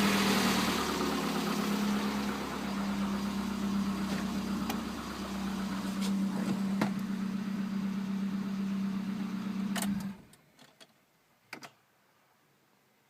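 Cold car engine idling steadily as it settles from a rev, with a few scattered ticks, then switched off about ten seconds in, followed by a couple of faint clicks.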